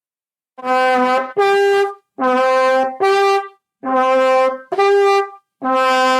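Bugle playing seven separate notes, switching back and forth between a low note and the next note up, each held about half a second. With no valves, the jumps come from lip tension and breath pressure alone.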